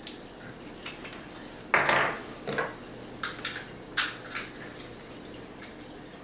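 A few light clicks and taps of small objects being handled, with one short clattering rustle about two seconds in, the loudest sound.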